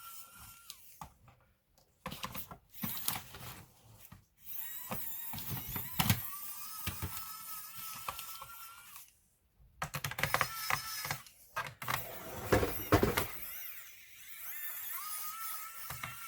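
Small battery electric screwdriver whirring in short runs with a steady whine, between sharp clicks and knocks of screws, tools and plastic laptop casing parts being handled.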